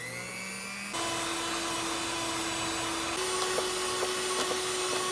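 Scarlett electric hand mixer on its stand running, its beaters creaming butter and sugar in a steel bowl, the motor giving a steady whine. It steps up louder about a second in and shifts slightly in pitch midway, with a few faint ticks.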